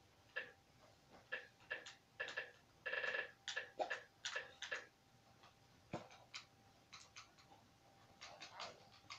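Light, irregular clicking, about two to three clicks a second, thinning out in the second half, with one slightly longer pitched click about three seconds in.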